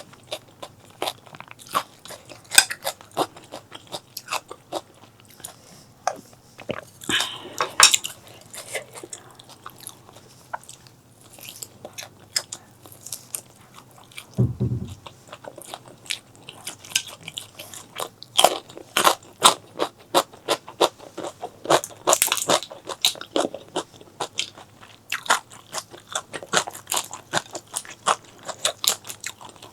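Close-miked eating: a person chewing and biting food, with a steady run of sharp wet clicking mouth sounds and a few longer noisy stretches. A single low thud comes about halfway through.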